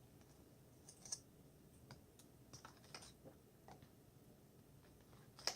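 Faint, irregular light clicks and taps of a stirring utensil against a container while slime is being mixed, about a dozen over a few seconds with near silence between.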